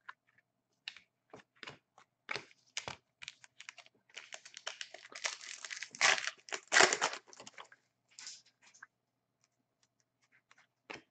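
Hockey trading cards being handled and slid against each other: scattered clicks and taps of card stock, with a denser stretch of rustling and sliding in the middle.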